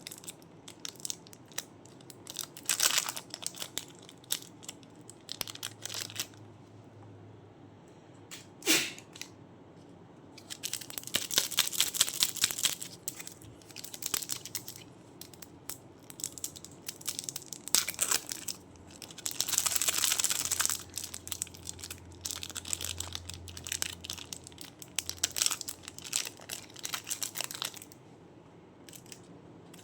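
Crunchy clay being squeezed and crumbled by hand: dense, crisp crackling that comes in bouts with quieter pauses between, and a single sharp snap about nine seconds in.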